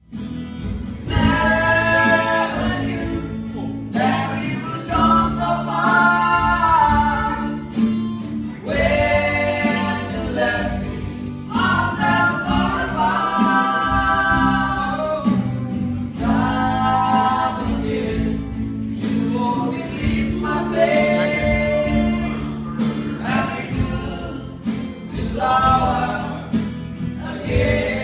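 Live acoustic band: several acoustic guitars strummed with singing voices.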